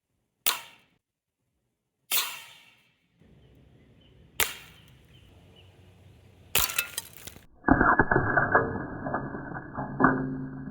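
Air gun firing steel BBs at a glass pane: four sharp cracks about two seconds apart, the last one a longer crash. Then a duller, muffled stretch of rattling and clinks.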